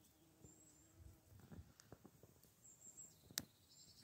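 A few soft knocks and then one sharp metal click, about three and a half seconds in, from a hand working the firebox door of a miniature cast iron stove. Faint short bird chirps sound in the background.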